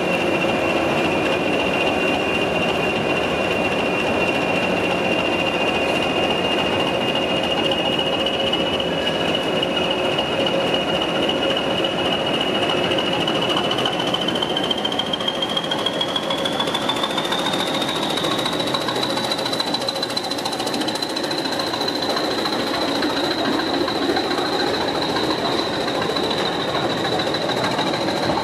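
BR Class 20 diesel locomotive's English Electric engine running with a high turbocharger whistle, which rises in pitch about halfway through and then holds as the engine takes power and the locomotive pulls away with its train of flat wagons.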